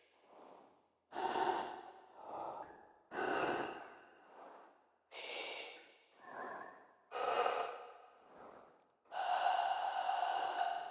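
Artificial breathing made in Pro Tools from filtered vocal tones shaped by automated reverb, run through the Eventide Octavox pitch-shifting and delay plugin. It swells like an inhale and exhale about every two seconds, each swell starting sharply and fading, with a softer swell between. Near the end comes a longer, steadier swell carrying a clear held tone.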